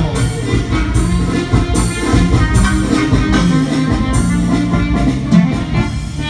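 Live band playing loud dance music: a held melody line over a steady drum beat and bass.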